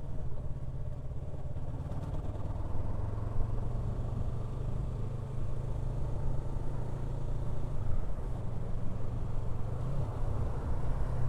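Yamaha R3 motorcycle's 321 cc parallel-twin engine running steadily at low revs in sixth gear while riding.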